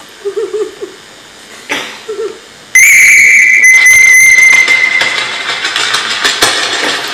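A shrill whistle tone starts suddenly a little under three seconds in, holds steady and slowly fades, with a crackling hiss under it. Before it come two short, low wavering sounds.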